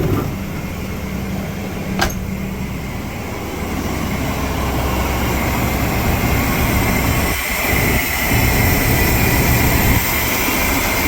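1998 Chevrolet Silverado engine idling steadily, with the replacement alternator charging. A sharp click comes about two seconds in, and the running gets louder about four seconds in.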